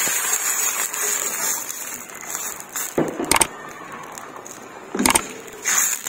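Vegetable stock poured into a hot pan of sautéed vegetables, hissing as it hits, then a wooden spatula stirring and knocking against the pan a few times in the second half.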